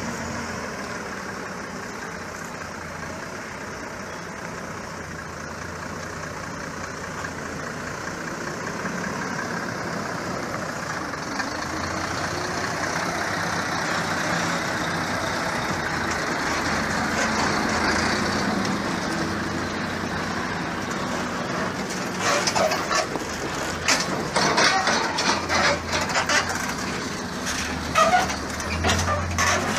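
Heavy truck engine running steadily and growing louder through the middle. In the last several seconds a series of sharp, irregular cracks and knocks joins it.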